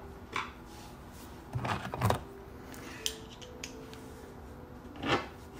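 A few small, scattered clicks and scrapes of hands handling a screw and a plastic air-box cover, as the screw is started by hand.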